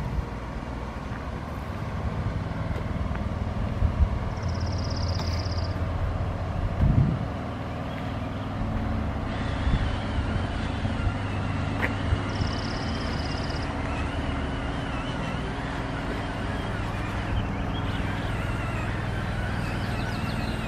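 An engine running steadily, with a few low thumps of wind on the microphone in the first several seconds.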